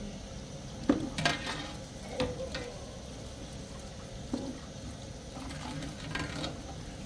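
Dishes being hand-washed at a sink: a metal serving tray and other dishes knock and clatter several times, the loudest about a second in, with water splashing.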